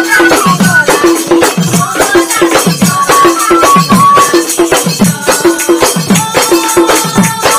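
Assamese Dihanam devotional music: a barrel drum beating a steady rhythm of about two strokes a second, with jingling cymbals and a high, held melodic line over it.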